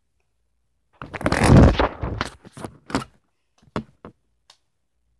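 Handling noise: a rustling scrape about a second in, followed by several short knocks and clicks.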